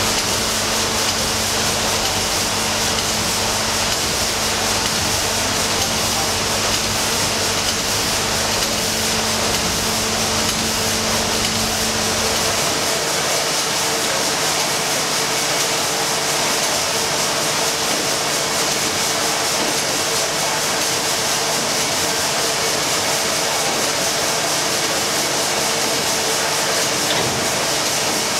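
Triple-expansion steam engine running in a steamship's engine room: a steady, loud mix of steam hiss and machinery noise. The low hum underneath drops away about halfway through.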